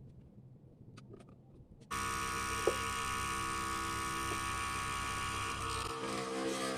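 A few faint clicks, then about two seconds in the small electric motor of a mini wood lathe converted into a drill press switches on and runs with a steady, even whine.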